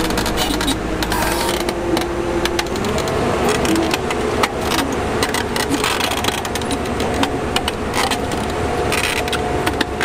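Heavy diesel engine of the recovery machinery running under load, its pitch rising about three seconds in, with frequent sharp clicks and knocks.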